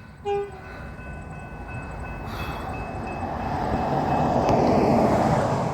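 Sprinter diesel railcar sounding a short horn toot, then the rising noise of the railcar approaching and passing, swelling to its loudest near the end.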